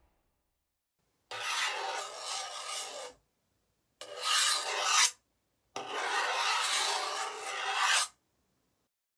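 Sci-fi sound effects: three separate bursts of harsh, rasping noise, each cutting in and off abruptly with dead silence between; the second swells louder toward its end.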